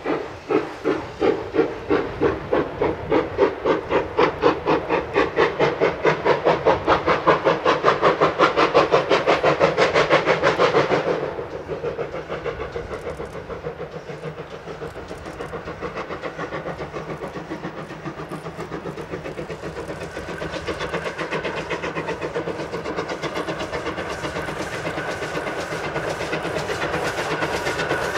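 GWR 14xx-class 0-4-2 tank engine No. 1450 working a train, its exhaust chuffing in an even beat that quickens as it goes. About eleven seconds in the beats turn suddenly quieter and carry on faster.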